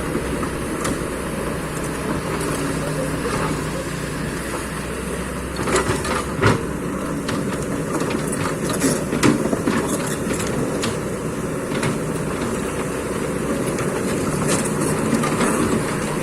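Excavator's diesel engine running steadily under load while it compacts reclaimed ground. Several sharp knocks sound over it, the loudest pair about six seconds in and more around nine seconds.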